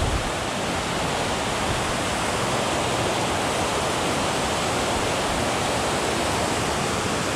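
Steady rush of water pouring over a spillway, an even roar with no breaks.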